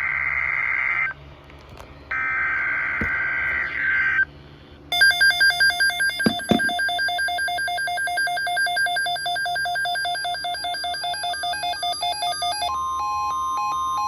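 Emergency Alert System tones over NOAA Weather Radio. First come two bursts of the SAME digital header, a harsh warbling two-tone data screech about two seconds each with a second's gap. Then an electronic alert alarm beeps rapidly for several seconds, and near the end the steady 1050 Hz weather radio warning tone comes in.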